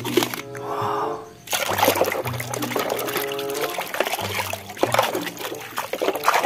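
Water splashing and sloshing as a hand swishes muddy toys around in a basin of muddy water, starting about a second and a half in, over background music.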